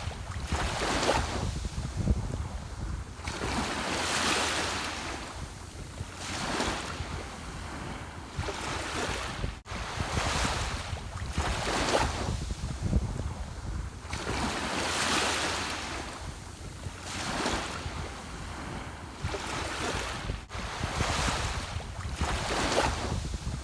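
Ocean waves breaking and washing in, each surge of hiss swelling and fading every two to three seconds over a steady low rumble.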